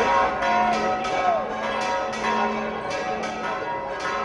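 Church bells pealing in quick, repeated strokes, about two to three a second, each stroke ringing on into the next.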